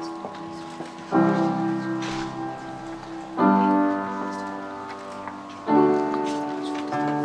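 Music: slow chords struck three times, each ringing and slowly fading before the next.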